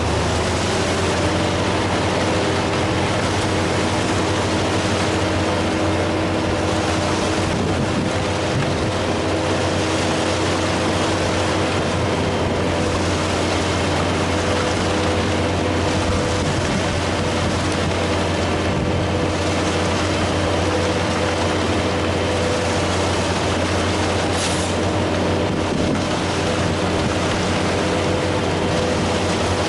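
Heavy diesel engine running steadily at constant speed, a loud unbroken drone with a deep hum and steady overtones.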